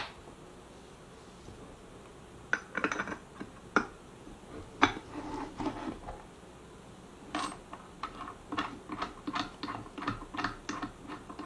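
Light metal clinks and clicks from a billet aluminium two-stroke cylinder head, its domes, washers and spark plugs being handled and fitted together on a workbench. They start about two and a half seconds in and come more often in the last four seconds, as spark plugs with washers are set and turned into the plug holes.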